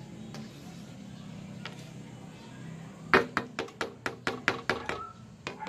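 A quick run of about ten sharp taps, roughly five a second, starting about three seconds in, the first the loudest, over a low steady hum.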